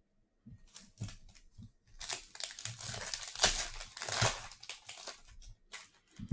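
Foil wrapper of a Bowman baseball card pack being torn open and crinkled by hand: a few crackles, then about three seconds of dense crinkling near the middle, easing off into scattered crackles.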